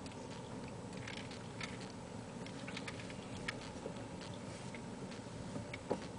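Car cabin while driving slowly: a low, steady hum of engine and road, with scattered faint light ticks and rustles.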